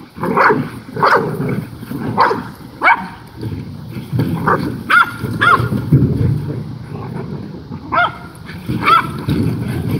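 Black mouth cur hog dogs barking and yelping in short calls, about nine of them scattered through, while they bite and drag a plastic wheelbarrow, with steady low scuffling and knocking from the tub and their struggle underneath.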